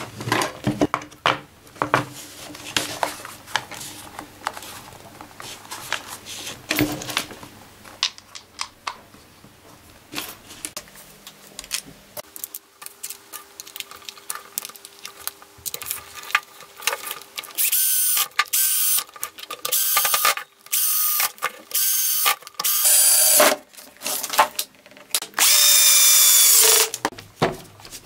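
Clicks and knocks of a plastic drill housing being handled and closed. Then a freshly reassembled Peugeot 400W electric drill is run in a series of short bursts, each a steady motor whine. A final longer run of about two seconds winds down in pitch as the motor stops.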